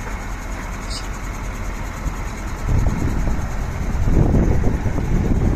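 Heavy diesel truck engine running, its low rumble growing louder about two and a half seconds in and again about four seconds in, with a brief click about a second in.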